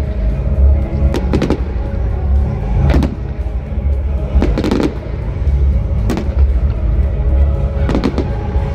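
Aerial fireworks shells bursting overhead, a sharp bang or crackle about every one to two seconds, over music with heavy bass.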